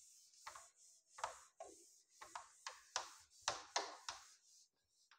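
Duster wiping a whiteboard clean in about ten quick, faint rubbing strokes that stop shortly before the end.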